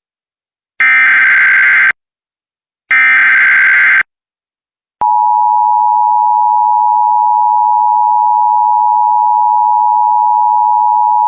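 Emergency Alert System SAME header: two loud, harsh digital data bursts of about a second each, then about a second of silence and the steady two-tone EAS attention signal starting about five seconds in. The header encodes the coming alert, and the attention tone announces the voice warning that follows.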